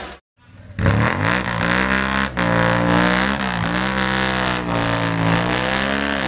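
Engine of an open-top UAZ-469 revving hard under load while climbing a slope. It comes in after a brief silence near the start, and its pitch rises and dips several times as the revs surge and sag.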